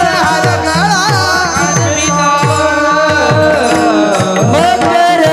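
Marathi devotional bhajan music: a bending melodic line over drum strokes about twice a second, each low stroke sliding down in pitch, as from a tabla's bass drum.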